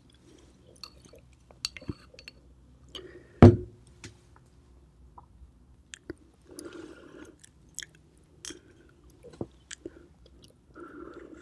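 Chopsticks clicking lightly against an oyster shell and a glass sauce jar, then a loud knock with a short ring about three and a half seconds in. After that come wet slurping and chewing as a cooked oyster is eaten from its shell, strongest near the end.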